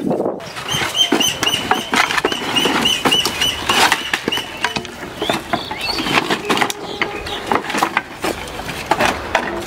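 Wooden planks knocking and clattering as boards are pulled off a woodpile and thrown aside. During the first few seconds a high chirp repeats about three times a second over the knocking.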